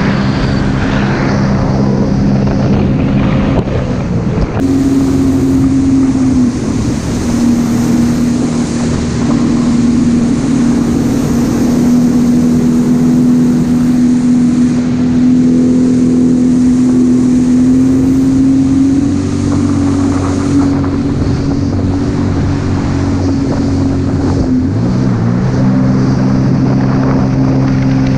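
Jet ski engine running at speed, a steady droning note with wind on the microphone. The pitch rises near the end.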